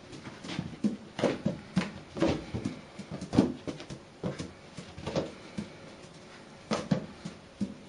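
Inflated rubber balloon thumping as a kitten bats and pounces on it and it bounces against the carpet, wall and door: irregular dull thuds, several a second at times, with a short lull about six seconds in.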